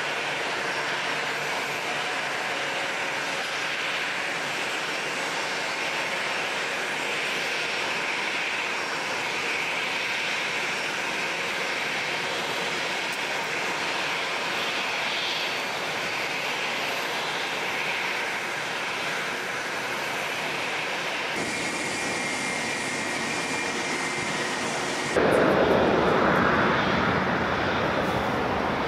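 Boeing 777-300 jet engines running steadily as the airliner touches down and rolls out on a wet runway. Near the end an abrupt cut brings a louder, deeper jet noise from a taxiing 777, which then eases off.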